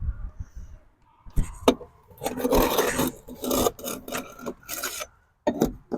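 Scraping and rasping at rotted wood in a wooden window frame, clearing out the loose rot with a hand tool: a couple of sharp knocks, then several rough scraping strokes.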